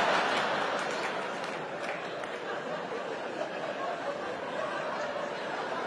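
Large theatre audience laughing, loudest at the start and slowly dying down to a steady lower murmur of laughter.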